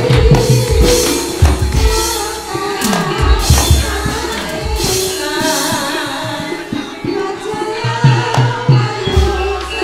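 Javanese gamelan playing fight-scene accompaniment: quick hand-drum strokes that drop in pitch over steady ringing metallophone tones, punctuated by sharp bright clashes.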